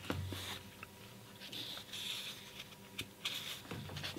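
Faint scattered clicks and a few brief soft rustles close to a studio microphone, over a faint steady hum.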